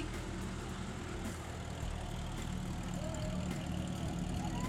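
Old vehicle engine running steadily at low revs, a continuous low throb. Faint voices come in over it in the second half.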